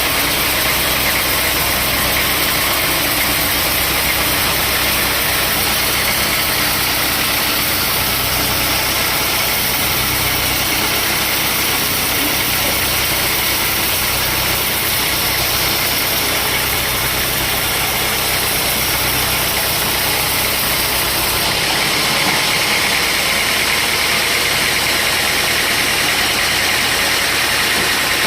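Sawmill machinery running steadily and loudly, a low motor hum under a dense hiss. About three-quarters of the way through, the low hum falls away and a higher hiss grows stronger.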